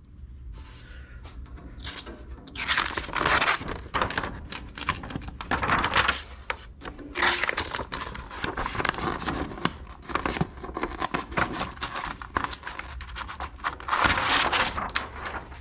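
Large printed plastic sheet being peeled off a griddle's flat cooking top, crinkling and rustling. It is quieter for the first couple of seconds, then comes in loud repeated bursts as the sheet is pulled and crumpled.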